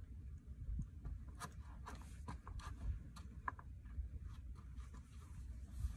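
Low wind rumble on the microphone, with a run of small clicks and rustles from about a second and a half in until near the end as the fishing line and the just-caught fish are handled.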